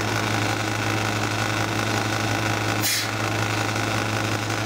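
Hermetic refrigeration compressor and condenser fan of a condensing unit running on 240 volts: a steady mains-pitched hum, with a brief hiss about three seconds in.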